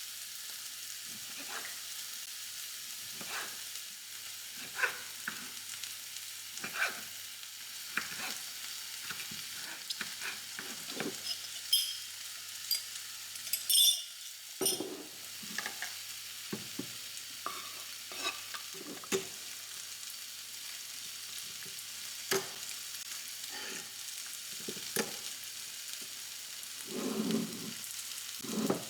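Food sizzling in a hot frying pan while it is stirred, a utensil knocking and scraping against the pan at irregular moments over a steady hiss.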